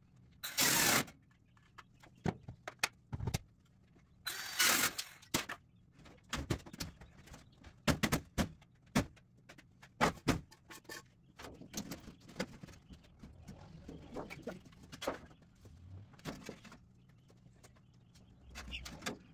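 Construction handling noise from metal roofing panels, lumber and tools. There are two loud noisy bursts of about a second each, near the start and about four seconds in, then scattered knocks, clicks and clatters.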